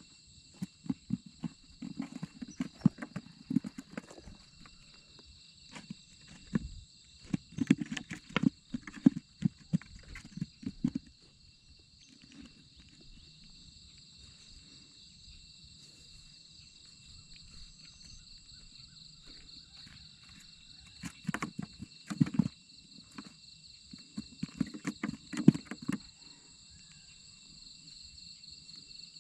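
Footsteps on a muddy bank, coming in several bursts of quick steps with pauses between, over a steady high chorus of insects.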